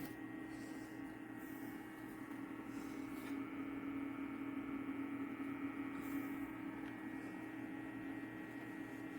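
Small AYAFATO mini dehumidifier running: its little fan gives a steady, even hum with no change.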